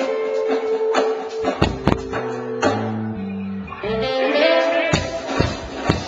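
A band playing amplified music: guitar with held notes and drum hits.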